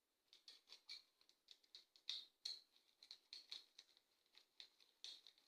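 Faint, irregular small clicks and scrapes, a few a second, of a screwdriver turning a terminal screw to clamp a wire on a two-gang wall switch.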